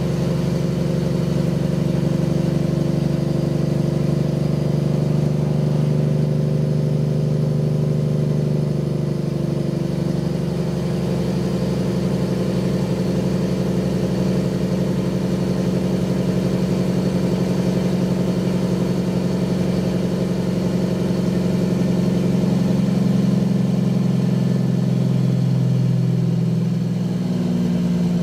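Peterbilt 379 semi truck's Caterpillar diesel engine running steadily under way. The engine note shifts about ten seconds in and rises near the end.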